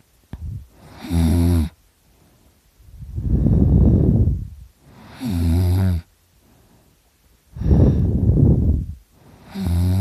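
A drunk man snoring really loud in his sleep. Each breath, about every four seconds, is a long, rough snore followed by a shorter snore with a steady low, buzzing pitch.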